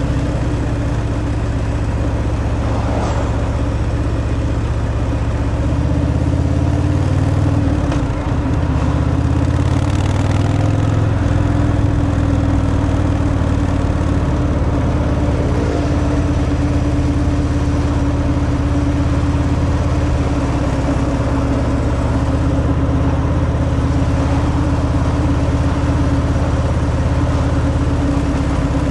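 Harley-Davidson Fat Boy's Milwaukee-Eight 114 V-twin running on its stock exhaust while riding, heard steadily throughout. About eight seconds in there is a brief dip in level and the engine note changes, then it runs steadily again.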